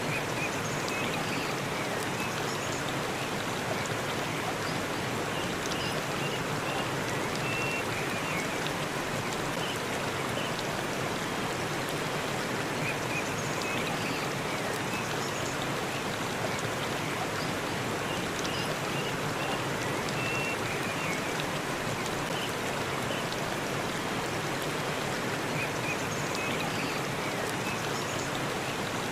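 Waterfall rushing steadily and evenly, with faint short high chirps now and then.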